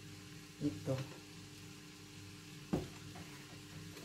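Sliced vegetables sizzling steadily in a frying pan on the stove, with one sharp knock, like a utensil striking the pan, a little under three seconds in.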